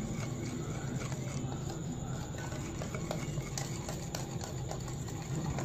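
Wire hand whisk stirring flour into an egg-and-sugar mixture in a bowl: soft irregular scraping with light clicks of the wires against the bowl.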